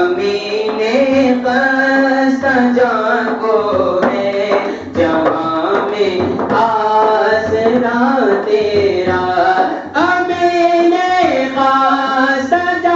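A male voice singing a manqabat, an Urdu devotional song, in long melodic lines with held notes that bend up and down.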